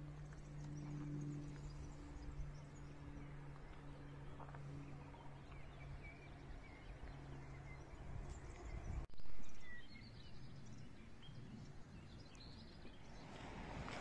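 Faint birds chirping over a steady low hum that stops about eight seconds in. A brief, loud, low thump comes about nine seconds in.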